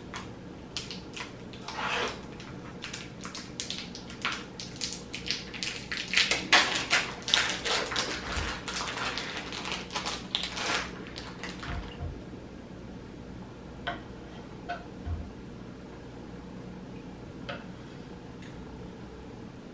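Plastic sausage packaging crinkling and crackling as it is pulled open and peeled off, densest and loudest in the middle. It then goes quieter, with a few scattered knocks of a knife on a wooden cutting board near the end.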